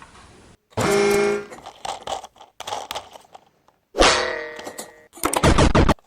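A string of short, separate sound effects and musical snippets, each starting abruptly. A held pitched tone sounds about a second in, and a sudden sound fades away about four seconds in.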